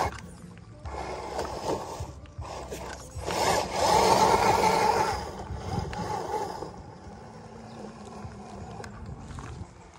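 ZP1007 RC crawler truck's motor and gears whining as its tyres grind over loose gravel and rocks, rising to its loudest as the truck passes close about four seconds in, then fading as it drives away.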